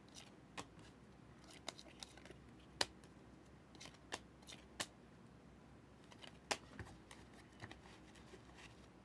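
Trading cards being handled and flipped through one at a time: sparse, light clicks and snaps, with louder ones about three seconds in and past six seconds.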